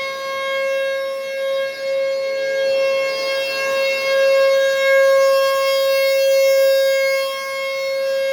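Outdoor warning siren sounding one steady tone, its loudness swelling and fading every few seconds. It is the night's second alert, which may be a tornado warning.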